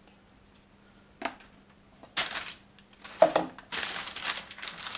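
Baking paper rustling and crinkling as it is handled and the soft polystyrene paste is pressed into the paper-lined form. A single knock comes about three seconds in, and the rustling thickens near the end.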